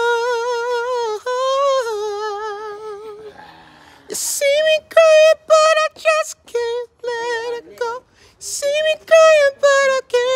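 A man singing unaccompanied in a high voice with wide vibrato. He holds one long note that fades away, takes a sharp breath about four seconds in, and then sings a run of short phrases, with another breath partway through.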